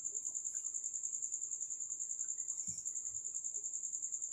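Insect chirping steadily: a high, thin trill pulsing several times a second.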